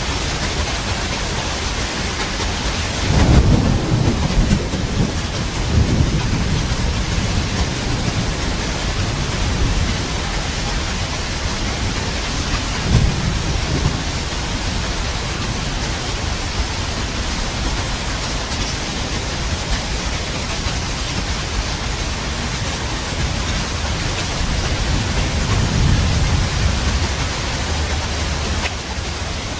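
Steady heavy rain with thunder rumbling several times: the loudest roll a few seconds in, shorter ones around six and thirteen seconds, and another long roll near the end.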